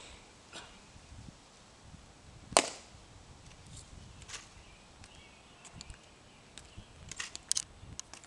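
Hard heels of a Tomb of the Unknowns guard's shoes clicking on the stone plaza. One sharp, loud click comes about two and a half seconds in, then spaced clicks as he marches slowly, with several in quick succession near the end.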